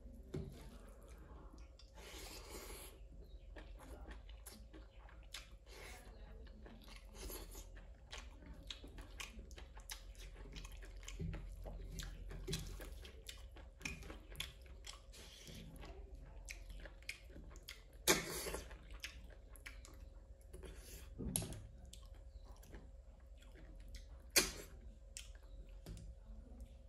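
Close-miked chewing and wet mouth sounds of a person eating, with scattered small clicks and smacks. Three sharper, louder sounds stand out in the second half.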